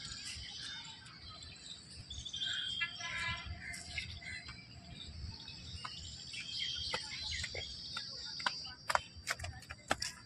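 Birds chirping over steady outdoor background noise, with a run of sharp clicks near the end.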